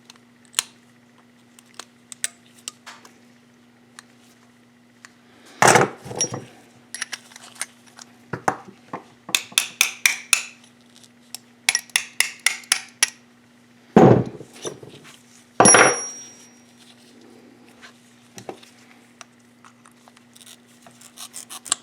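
Small metal parts and tools of a seized oil pump being taken apart, clinking and knocking as they are handled. There are two runs of quick light clicks around the middle and a few louder knocks, one of which rings briefly.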